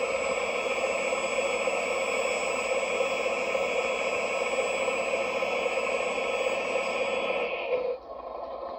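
Servonaut electronic sound module playing a truck diesel engine sound through the scale model's small loudspeaker, running steadily; near the end it drops suddenly to a quieter, lower-revving sound.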